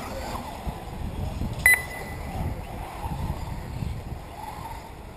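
Distant radio-controlled off-road cars racing on a dirt track, their motors a faint wavering whine over a steady low wind rumble on the microphone. A single short, high beep sounds about a second and a half in.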